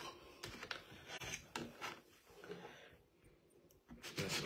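Plastic fork and knife cutting through pancakes, giving a series of light clicks and scrapes against a plastic food tray, with a louder stretch of noise near the end.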